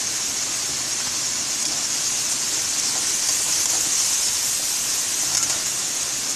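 Chicken and tomato masala sizzling steadily in hot oil in an aluminium kadai as red chilli powder is stirred in.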